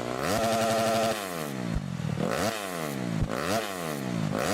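AKT TTDS 200 single-cylinder motorcycle engine through an aftermarket Akrapovic-style exhaust tip fitted with a dB killer. It is revved and held high for about a second, then blipped up and down three more times.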